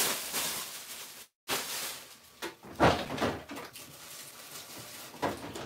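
Kitchen handling noises made off camera: a rustle, then several sharp knocks and clicks of a door being opened and shut, the loudest about three seconds in.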